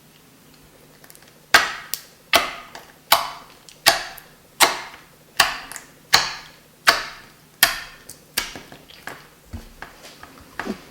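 Dish-soap-and-salt slime being pressed and squished by hand, making a sharp sticky click at each squeeze. About nine even squeezes come roughly one every three-quarters of a second, then quicker, softer ones near the end.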